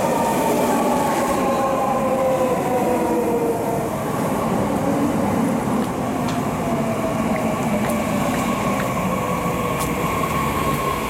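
JR Central 315 series electric train braking into the platform: its traction motors give a whine that falls in pitch as it slows, over steady wheel and rail noise, settling to a steady tone as it comes to a stop.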